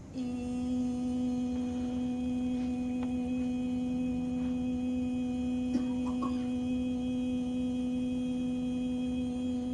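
Sustained meditative drone: a single steady low tone with a stack of overtones, held unchanged at one pitch, with a faint click a little before the six-second mark.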